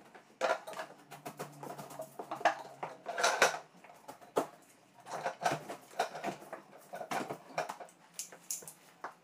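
A window frame being worked loose and lifted out of its opening by hand: irregular knocks, clicks and short rattles as the frame shifts against its surround.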